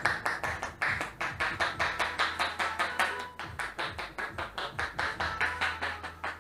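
Quick, even hand taps on a person's head, about six a second, as a barber gives a tapping head massage.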